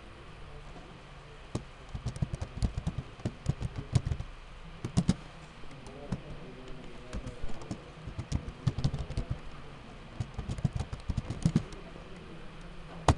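Typing on a computer keyboard: irregular bursts of keystrokes with short pauses between them, and one louder click near the end.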